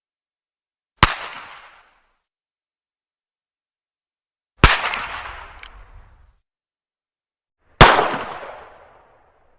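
Three single pistol shots a few seconds apart, each a sharp crack followed by a reverberating tail that fades over about a second. A faint click follows about a second after the second shot.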